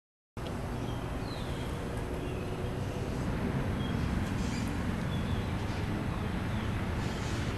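Outdoor background noise: a steady low rumble with a few faint bird chirps. It starts abruptly just after the start and cuts off suddenly at the end.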